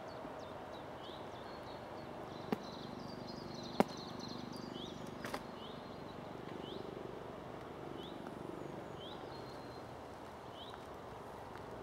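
Outdoor ambience with a small bird repeating a short rising chirp about once a second over a steady background hiss. Three sharp clicks stand out about two and a half, four and five and a half seconds in.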